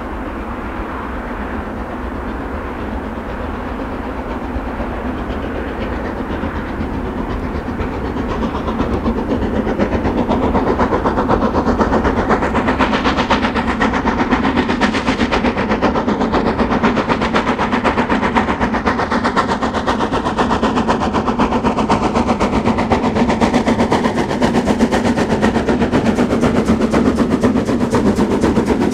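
Narrow-gauge steam train on the Harzquerbahn coming closer, growing louder over the first ten seconds, then passing close by with wheels clattering over the rail joints. A pitch that glides downward runs through the middle.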